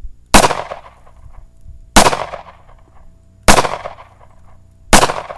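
.40 caliber handgun fired four times at an even pace, about a second and a half between shots, each shot trailing off in a short echo.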